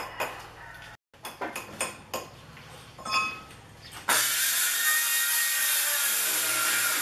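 A few scattered knocks and taps, then about four seconds in a power tool starts abruptly and runs loud and steady with a high whine.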